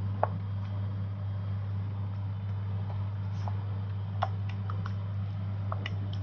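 Pan of saluyot (jute leaf) soup boiling on a gas stove and being stirred with a spatula: scattered small clicks and pops over a steady low hum.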